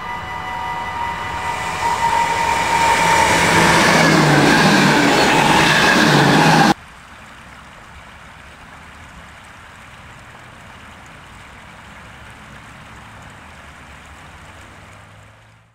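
A train approaching along the line, growing louder for about seven seconds with several steady high tones that dip slightly in pitch, then cut off abruptly. After that, a steady, quieter rush of water running over a small weir, fading out at the end.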